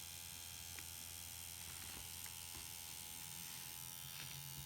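Steady faint electric hum, typical of a permanent-makeup machine pen running, with a few faint clicks of handling.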